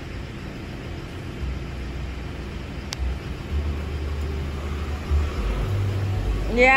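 Ford hatchback car driving slowly up over paving, its engine and tyres running under a low rumble that grows louder as it nears. Near the end a voice calls out with a short rising cry.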